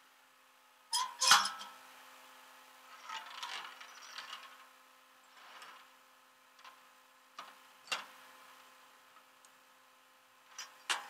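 Steel tow chain and hook clanking and rattling against the steel deck of a rollback tow truck, in several separate sharp clanks, the loudest about a second in, over a faint steady hum.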